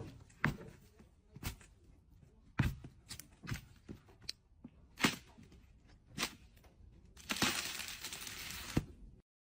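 A series of sharp knocks and clicks, about seven, irregularly spaced, with a burst of hissing noise for about a second and a half near the end.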